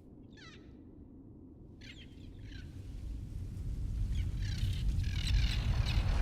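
Birds give short, falling calls over a deep rumble that grows steadily louder through the second half.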